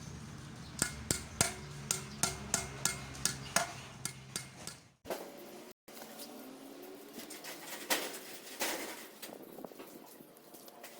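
Sharp metal-on-metal taps on an engine cylinder head during valve assembly, about a dozen quick strikes at three or four a second, then after a short break a few scattered clanks near the end.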